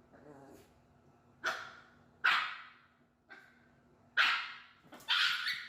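A dog barking: four loud barks a second or so apart, with a few softer ones in between.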